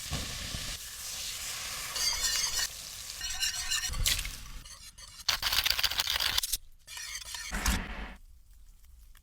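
Food sizzling as it fries in a pan, with stirring. The sound changes abruptly several times, as if short cooking shots were cut together, and it becomes much quieter near the end.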